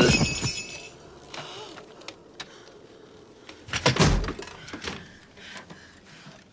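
A sudden loud crash, then scattered knocks and scuffling, and a second heavy thud about four seconds in, sound effects of a violent struggle.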